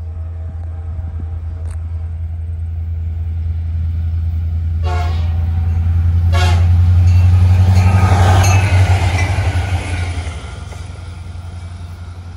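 Union Pacific locomotive approaching at speed, sounding two short horn blasts about five and six seconds in. A rising rush follows as the train passes, loudest about eight seconds in, then falling away.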